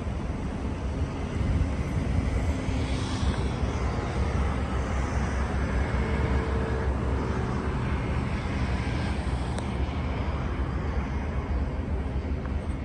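Steady low outdoor rumble with no single clear source, and a faint tick about two-thirds of the way through.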